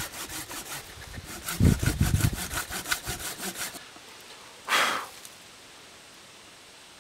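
Small Silky hand pull saw cutting a kerf into a green sugar maple limb, in quick short rasping strokes about five a second, with a low thump about two seconds in. The sawing stops after about four seconds, and one short hiss follows about five seconds in.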